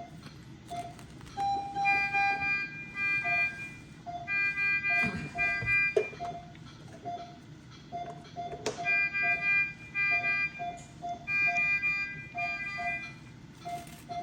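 Rhythmic electronic beeping like an alarm: a low beep repeating about twice a second under higher tones that sound in short repeated bursts.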